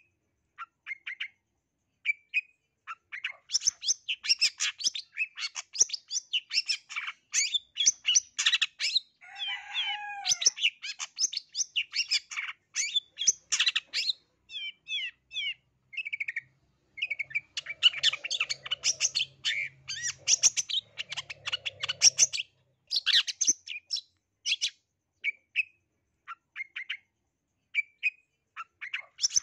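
Long-tailed shrike (black-headed 'blangkon' cendet) singing a fast, varied run of chirps, squeaky notes and mimicked phrases of other birds, in dense bursts with short pauses between. A harsh, falling squawk comes about ten seconds in.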